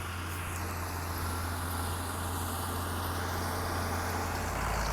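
Farm tractor engine running steadily, a low hum that grows a little louder near the end.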